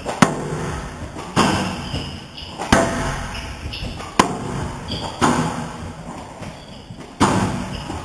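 Squash rally: the ball is struck hard by rackets and hits the court walls about six times, sharp cracks roughly every one to two seconds, each ringing out in the large hall.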